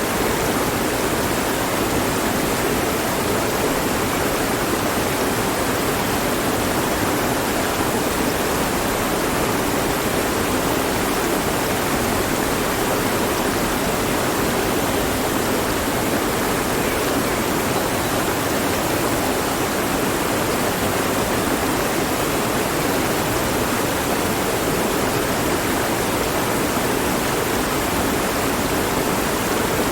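Mountain stream rushing over rocks: a steady, even splashing with no change.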